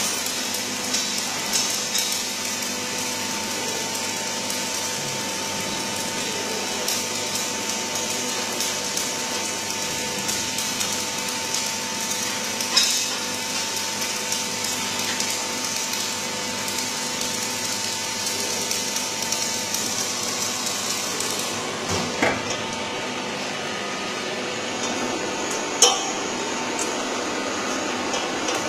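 Powered-up machinery running with a steady hum and a faint whine, which stops about two-thirds of the way through. A few sharp metallic clinks stand out, the loudest near the end.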